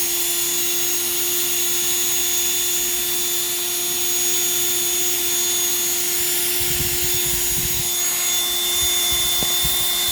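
Electric power drill running at a steady speed as its bit bores a hole through a head of cabbage, a constant high motor whine. A few low rumbles come about two-thirds of the way through as the bit works through the leaves.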